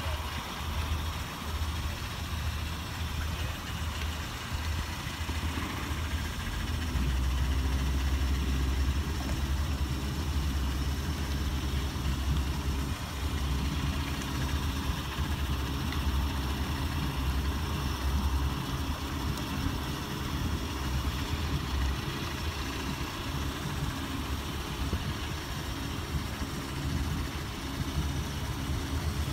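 Suzuki Grand Vitara 4x4 engine idling with a steady low hum, a little louder for several seconds about a quarter of the way in as it eases a boat trailer down a slipway.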